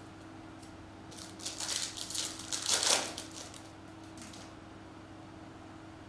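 A stack of trading cards being handled and shuffled in the hands. For about two seconds there is a run of crisp rustles and flicks as the cards slide against each other, loudest a little before the middle. A faint steady electrical hum runs underneath.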